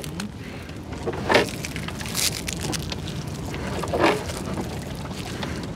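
Small river boat's engine running steadily. A few short louder noises sound over it, about one and a half, two and four seconds in.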